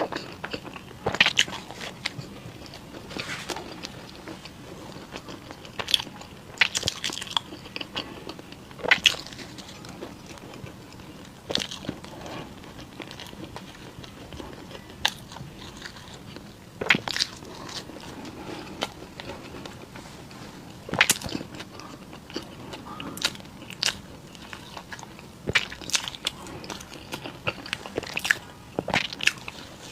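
Close-miked eating of crunchy Chinese pastries: sharp crunching bites every second or few, with chewing in between.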